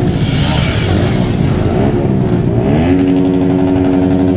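Motorcycle engines revving: a noisy rush in the first second, then one engine's pitch climbs about two and a half seconds in and is held at a steady high rev.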